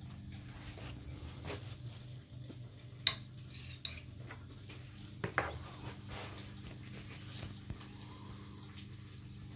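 Porcelain espresso cup clinking as it is lifted off the scale on the espresso machine's drip tray and set down on a counter: a few sharp knocks, the loudest about three seconds in and a quick double knock a little after five seconds. A low steady hum runs underneath.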